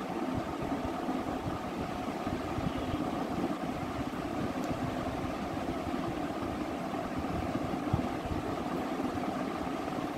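Steady mechanical hum of a running machine, even and unchanging, with a low drone under it.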